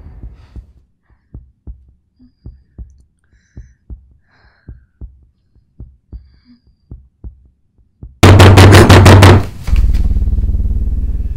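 Horror-film heartbeat sound effect: soft low thuds in lub-dub pairs, evenly spaced. About eight seconds in, a sudden very loud burst of rapid banging cuts in, followed by a loud low drone.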